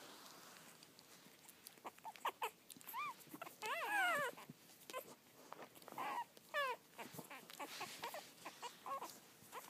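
Young puppy whimpering: a run of short, high-pitched squeals that fall in pitch, starting about two seconds in, with the longest and loudest near four seconds.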